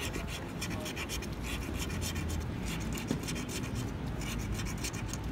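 A coin scratching the coating off a paper lottery scratch card, in rapid short scraping strokes.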